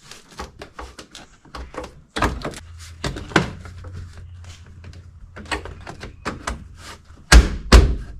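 Clicks and knocks of plastic interior trim being handled and fitted inside a pickup cab, with two loud thumps near the end.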